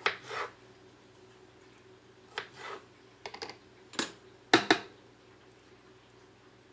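Kitchen knife slicing cucumber on a cutting board: irregular sharp taps of the blade against the board, singly and in quick clusters, the loudest cluster past the middle.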